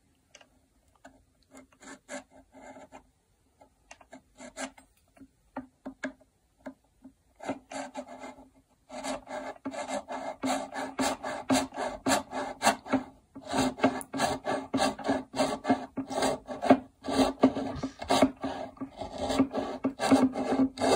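Japanese hand saw cutting across a violin's fingerboard. Light, scattered strokes for the first several seconds while the cut is being started, then steady, rapid back-and-forth sawing from about nine seconds in, with two brief pauses.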